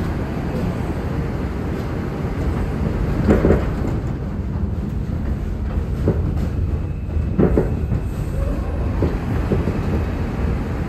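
R142 subway train heard from inside the car as it rolls along the station platform: a steady low rumble of wheels on rail, with a few clunks from the wheels about 3, 6 and 7.5 seconds in.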